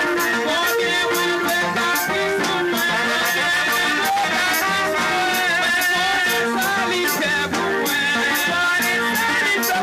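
Live gospel worship music: a woman sings lead into a microphone over electric guitar and drum kit, with a steady beat of shaker-like percussion.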